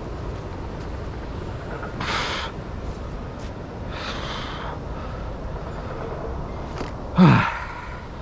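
The angler's short voiced exhale, a grunt falling in pitch, near the end. Before it are a couple of brief rustles while a landing net holding a pike is handled on the grass, all over a steady low rumble.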